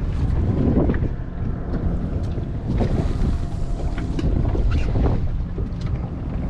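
Wind buffeting the microphone over choppy water, with small waves splashing against the boat's hull now and then.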